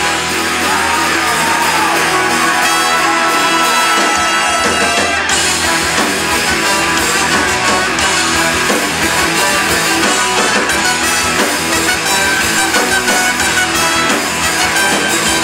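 A live rock band playing a loud instrumental passage, with brass horns over electric guitars and a rhythm section; the bass and drums come in fuller about four seconds in.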